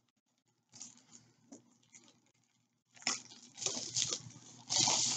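Plastic bag rustling and crinkling as a rolled canvas is slid out of it. It is faint and sparse at first, then comes in louder, busier bursts over the last two seconds.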